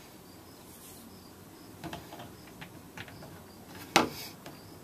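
Faint insect chirping, short high chirps repeating evenly, with a few light clicks and one sharp knock about four seconds in.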